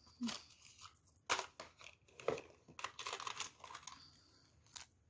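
Hand rummaging through earrings on cardboard display cards in a plastic drawer organizer: a string of light clicks and rustling, denser around the middle, with a last click near the end.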